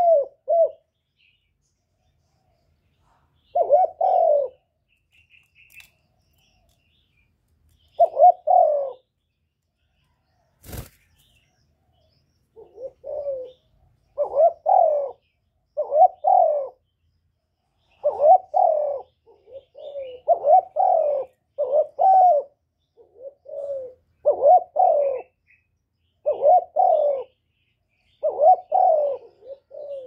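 Spotted dove cooing: a few spaced phrases at first, then from about halfway a quicker run of coos, about one every second or so, as the bird bows low with its feathers puffed out. A single sharp click comes just before the faster cooing starts.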